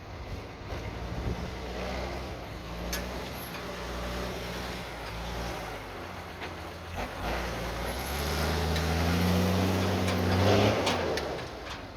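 M35A2 military truck's multifuel turbodiesel engine running, then revving up from about two-thirds of the way in, rising in pitch and loudness, before easing off near the end. A few sharp clicks come in between.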